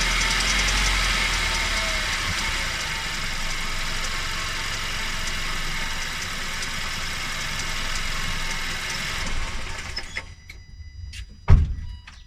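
Car engine running steadily, then shut off about ten seconds in; a single loud thump follows about a second and a half later.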